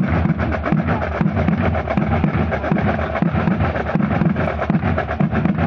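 A drum corps playing marching drums together in a fast, dense rhythm, with a repeating low beat underneath.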